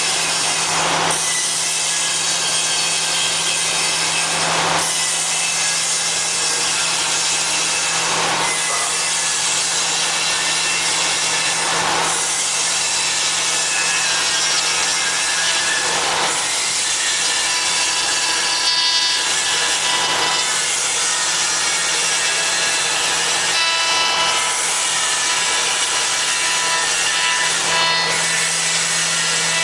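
5-axis CNC router spindle milling wood: a steady, dense cutting noise with a constant spindle whine, swelling about every four seconds.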